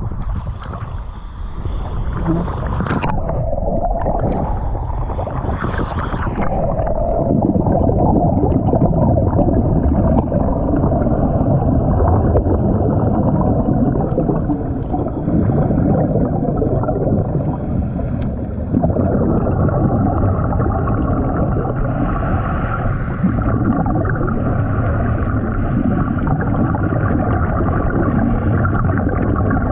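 Muffled underwater rushing and gurgling, typical of a scuba dive recorded through a camera housing. A steady hum joins about two-thirds of the way in.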